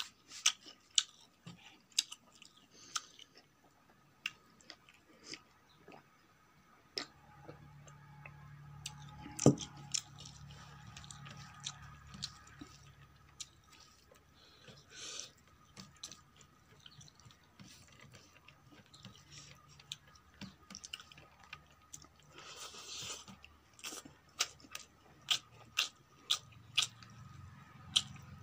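Close-miked eating: chewing a mouthful of rice and vegetables, with many small sharp wet mouth clicks and smacks, and one louder knock about nine and a half seconds in.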